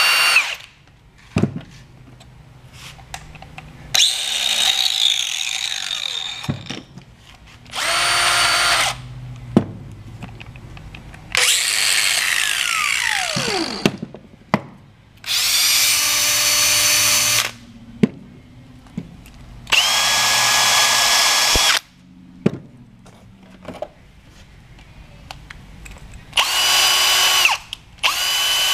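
Milwaukee 18V cordless power tools are run one after another in about seven short bursts of a second or two each. Each burst is a steady motor whine, and some end in a falling whine as the tool spins down after the trigger is released. Trigger clicks and handling knocks come between the runs.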